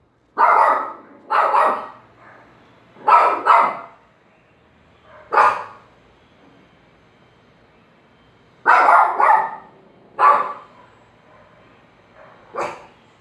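A dog barking: about nine sharp barks, mostly in quick pairs, with pauses of a second or more between them. It is barking in alarm at noise at the door.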